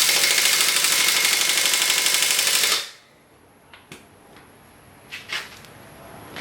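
Impact wrench hammering rapidly as it loosens a wheel lug nut, a dense rattle that stops abruptly about three seconds in. A few light clicks follow.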